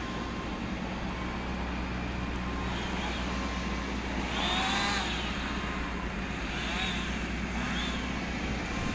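Case backhoe loader's diesel engine running steadily as it manoeuvres, with its reversing alarm giving faint short beeps about once a second.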